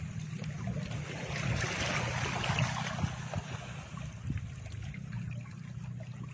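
Added background soundtrack: a steady low hum under a soft, even rushing noise, with faint small clicks scattered through it.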